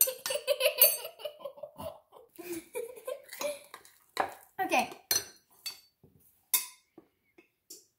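Utensil clinking and scraping against a mixing bowl in short, irregular strokes while cookie dough is mixed.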